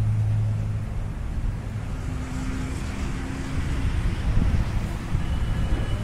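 Flatbed transport truck's diesel engine running, a steady low hum with road rumble; the low hum drops away about a second in and a higher drone comes through for a couple of seconds in the middle.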